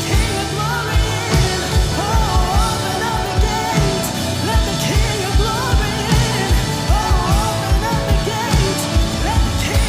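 A worship band playing, with a singing voice carrying a gliding melody over sustained chords and a steady, driving kick-drum beat.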